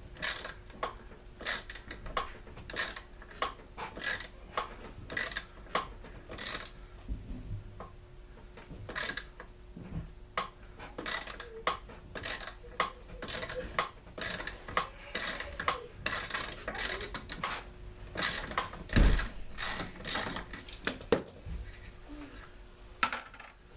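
Hand tools clicking and clinking on the Stihl BG 56 C leaf blower's parts as a rust-stiffened fastener is worked out: irregular sharp clicks, a few a second at times, with one heavier knock about three-quarters of the way through.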